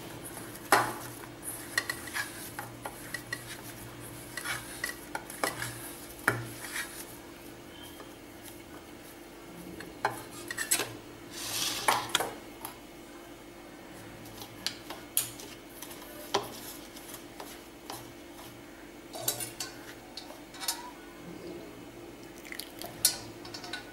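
Hands mixing crumbly rice-flour dough in a stainless steel bowl: scattered clinks and knocks of fingers and bowl against metal, with a few louder clatters about ten to twelve seconds in, over a steady low hum.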